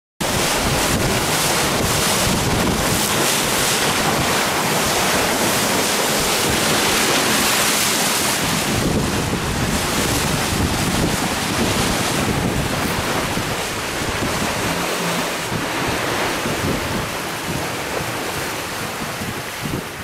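Strong wind buffeting the microphone over the steady rush of waves and water along a J80 sailboat's hull under sail.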